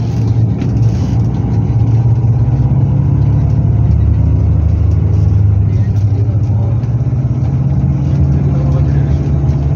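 Steady low drone of an airport shuttle bus's engine and running gear, heard from inside the cabin while it drives across the apron. Faint passenger voices murmur underneath.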